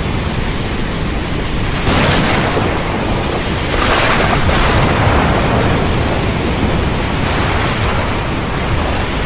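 Heavy rain falling steadily with thunder rumbling; the noise swells suddenly about two seconds in and again about four seconds in.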